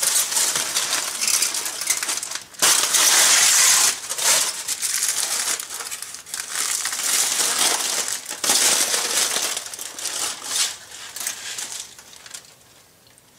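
Heavy-duty aluminium foil crinkling and rustling in irregular bursts as several layers are peeled open and pulled away by hand, dying away about twelve seconds in.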